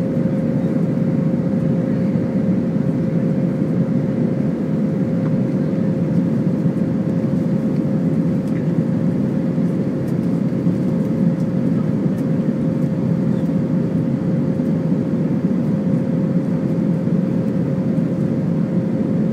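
Steady engine and airflow noise of an Airbus A319 heard inside the cabin while climbing after takeoff, a low rushing noise with one steady mid-pitched tone held over it.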